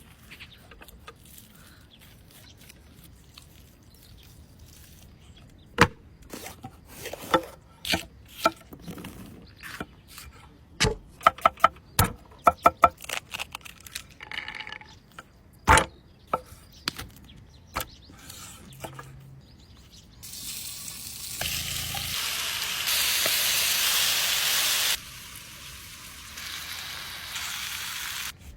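A series of sharp clicks and knocks, then food sizzling in a hot pan from about two-thirds of the way in. The sizzle is loudest for a few seconds, then drops back to a lower level.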